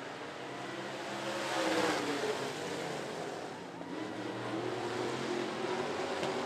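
Several dirt-track stock cars racing in a pack, their engines running hard and sliding in pitch as they pass. Loudest about two seconds in, where the pitch drops as cars go by.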